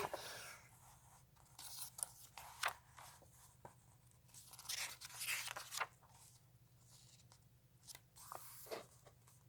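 Comic book pages being turned and handled, with soft paper rustles in a few short clusters.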